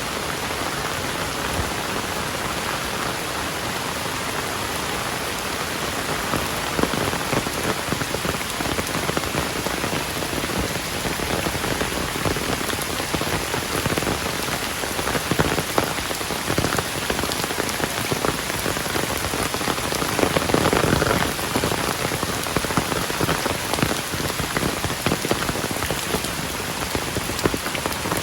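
Heavy rain pouring onto a surface, a dense steady hiss with countless drops spattering close by. It grows a little heavier about six seconds in and surges briefly about twenty seconds in.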